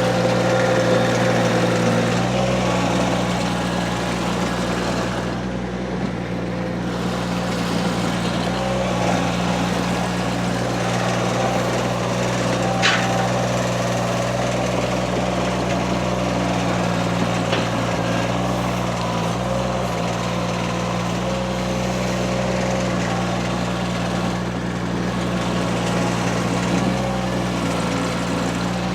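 Derette V1000 mini skid steer's engine running at a steady speed.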